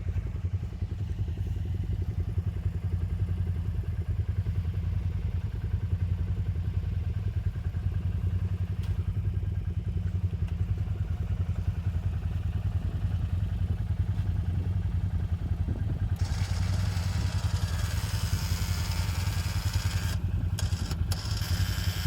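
ATV engine idling steadily with an even low throb. About sixteen seconds in, a broad hiss joins it and drops out briefly twice near the end.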